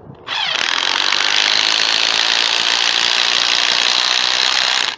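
Ryobi P235A 18V 1/4-inch impact driver driving a 4-inch lag bolt through a socket adapter into telephone-pole wood. The motor spins up with a brief rising whine, then the impact mechanism hammers steadily under load. It stops abruptly just before the end, once the bolt is in.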